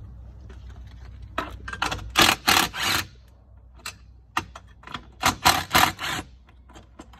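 Socket ratchet wrench clicking in two series of short strokes, each ending in three loud ones, as 10 mm bolts are backed out of the controller bracket.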